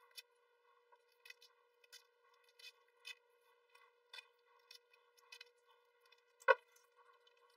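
Scissors snipping through a paper template and thin adhesive lure foil, one short sharp snip every half second to second, with one much louder click near the end.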